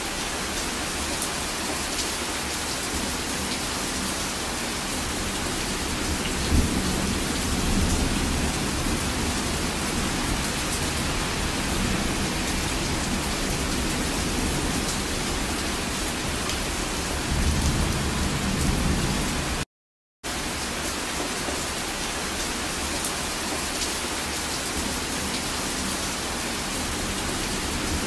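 Heavy rain falling steadily, with low rumbles of thunder swelling about six seconds in and again near eighteen seconds. The sound cuts out completely for about half a second around twenty seconds in.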